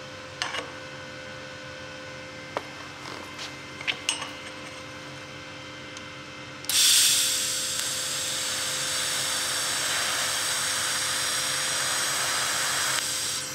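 Vevor 210A TIG welder's arc on mild steel: it strikes suddenly about halfway through, burns with a steady hiss for about six seconds, then cuts off. Before it there are a few light clicks over a steady background hum.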